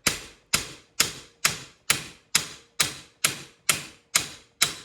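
Steel hammer blows on metal, struck in a steady rhythm about twice a second, each blow ringing briefly: knocking a seized part loose on a VW Baja front suspension.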